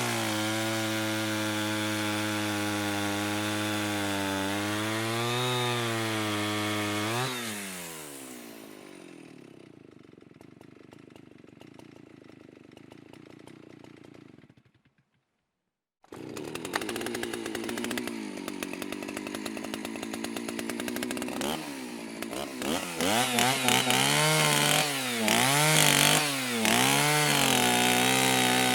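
Two-stroke chainsaw running at high revs, then its revs dropping away about seven seconds in to a low, quieter run that cuts off. After a brief silence a chainsaw idles, is revved up and down about five times in quick succession, and holds at high revs near the end.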